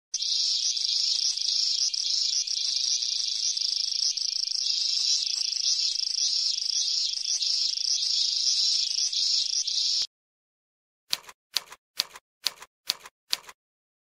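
Cicadas singing: a dense, shrill buzz pulsing about twice a second, which cuts off suddenly about ten seconds in. Then seven short clicks at an even pace.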